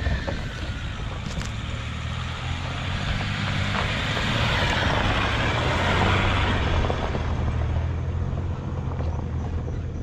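Land Rover Discovery four-wheel drive driving past on a loose gravel track: its engine note and tyres on the stones swell to their loudest as it passes, about six seconds in, then fade as it moves away.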